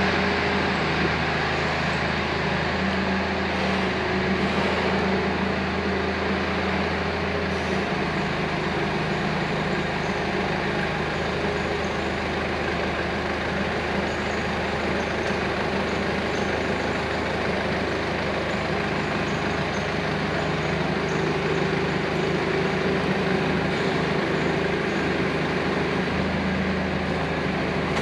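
Forklift engine running steadily while the forklift brings the limb-riser arch over, with a shift in its low hum about eight seconds in.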